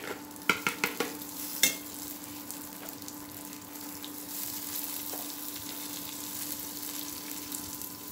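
Raw rice frying in hot oil with browned onions in a metal pan, stirred with a spatula: a steady sizzle, with a few sharp clicks of the spatula against the pan in the first two seconds.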